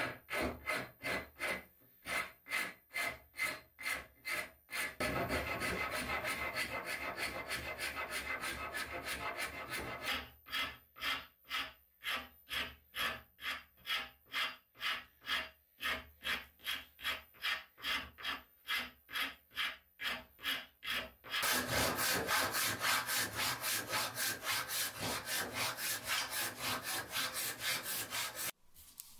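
A hand rasp and file scraping back and forth across a block of wood held in a vise, in steady strokes about two a second. About twenty seconds in, a hand saw takes over, cutting through the wood faster and louder, and it stops suddenly near the end.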